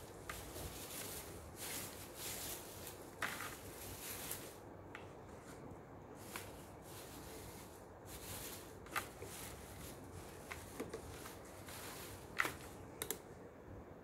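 Shredded-paper crinkle filler rustling as hands rummage through it in a wicker hamper. It comes in bursts during the first few seconds, then gives way to separate sharp crackles, the loudest of them near the end.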